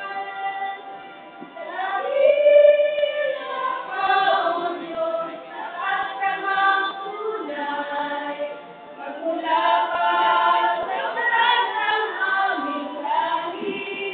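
A group of women singing together in sustained, held phrases, with brief breaks between lines.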